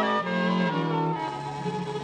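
Orchestral bridge music marking a scene change in an old-time radio drama. A few held notes step downward, then a long low note is held from just past a second in, slowly fading.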